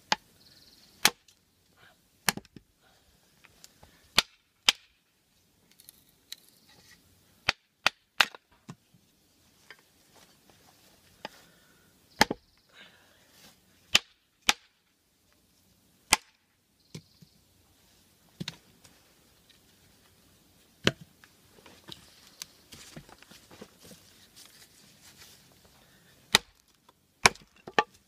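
A chopping blade striking into the edge of a split softwood block, splitting pieces off it: about fifteen sharp wooden chops at uneven intervals, some in quick pairs.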